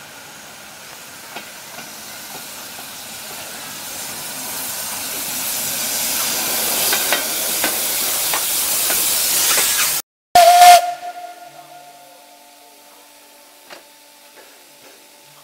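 ČSD class 475.1 steam locomotive blowing steam from its cylinder drain cocks, a rushing hiss that grows steadily louder as the engine comes alongside, with a few sharp clicks. After an abrupt break, a very loud short blast with a brief whistle tone, then the locomotive's quieter steady hiss and hum.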